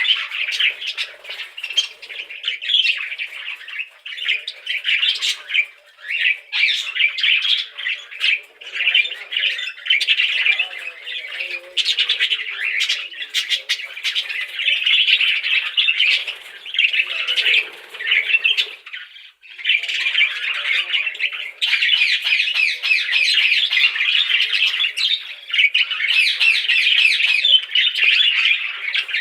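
Budgerigars chattering and chirping nonstop, several birds warbling and squawking over one another.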